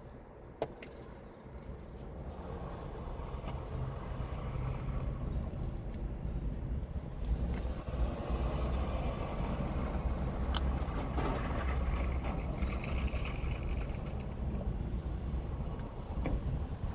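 Steady low rumble of a motor vehicle, growing louder over the first few seconds and then holding steady, with a few faint clicks.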